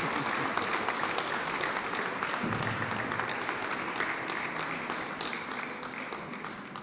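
Audience applauding, the clapping slowly dying away towards the end.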